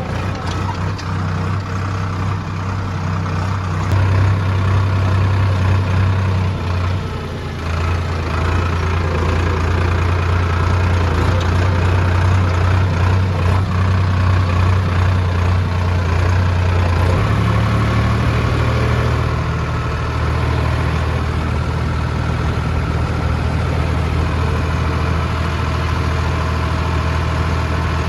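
Heavy diesel engine of earthmoving machinery running steadily. Its engine note shifts a few times, most clearly about two-thirds of the way through.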